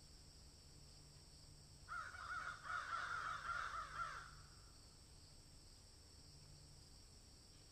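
A run of rapid, wavering animal calls lasting about two seconds, starting about two seconds in, over a faint steady hum.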